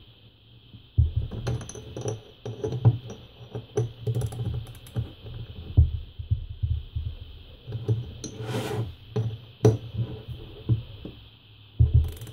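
Small socket ratchet clicking in quick runs while screws are tightened into the aluminium body of an electric hydraulic power steering pump, with a few louder metal knocks. The clicking starts about a second in.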